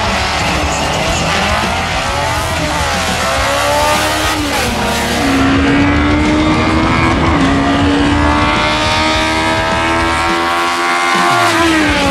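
Drag-racing cars, a Subaru Impreza STi and a Honda Civic with a B18 four-cylinder engine, launching and accelerating hard down the strip. The engine pitch climbs, drops back at a gear change about four to five seconds in, climbs again for several seconds, and falls away near the end.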